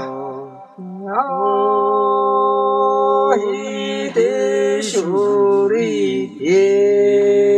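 A man's voice singing slow, long held notes, each one starting with a short slide up into the pitch. The longest notes are held for about two seconds, with shorter notes in between.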